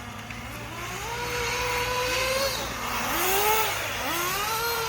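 Several radio-controlled cars racing, their motors whining and rising and falling in pitch as they accelerate and slow around the track.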